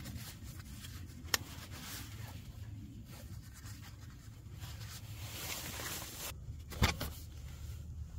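Nylon tent fabric rustling as a tube LED light is handled and pressed against it, with a sharp click about a second in and a louder one near the end. A low steady rumble runs underneath.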